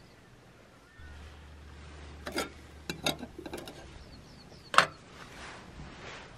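A few sharp knocks and clicks over a low rumble that starts about a second in, with one loud knock a little after the middle.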